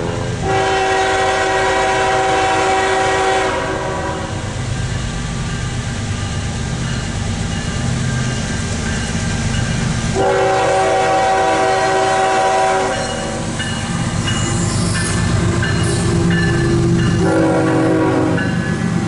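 CSX freight diesel locomotive's multi-note air horn sounding three blasts, two long and then a short one near the end, over the rumble of the locomotive as it approaches and passes close by.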